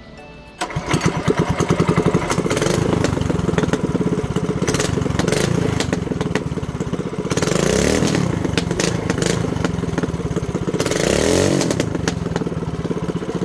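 Single-cylinder mini bike engine, running through a new short straight header pipe with no muffler, starts about half a second in and runs with rapid, loud exhaust pulses. It is revved up and back down twice, near the middle and again a few seconds later.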